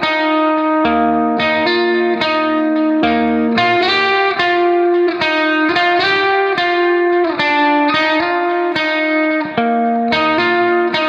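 Background instrumental music: a plucked-string melody with notes struck at a steady pace.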